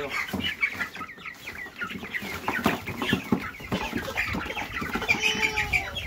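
A flock of five-week-old meat chickens peeping and cheeping constantly as they are lifted and packed into a crate, with many quick high calls overlapping.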